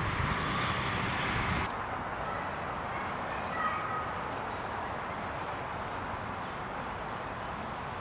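Wind rumbling on the microphone, cutting off abruptly a second and a half in to quieter open-air ambience with a few faint bird chirps.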